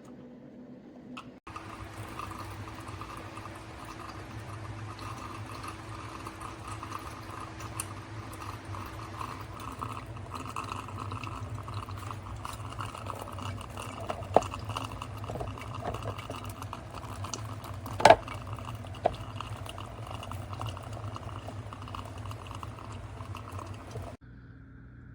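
Liquid pouring and bubbling steadily, with a few sharp clicks, the loudest about two-thirds of the way through. The sound starts and stops abruptly.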